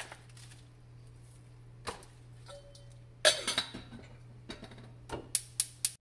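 Small stainless saucepan and its lid clinking and knocking on a gas stove's grate, the loudest clatter about three seconds in. Near the end come three sharp, evenly spaced clicks.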